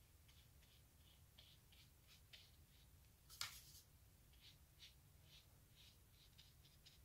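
Faint, scratchy dabs and strokes of a small round paintbrush laying watercolour paint onto paper, in short irregular touches, with one louder scrape about three and a half seconds in.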